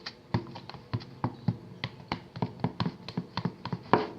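A mixing tool clicking and knocking against the side of a bowl while stirring white glue and shaving foam. It is a quick, irregular run of sharp clicks, with the loudest one near the end.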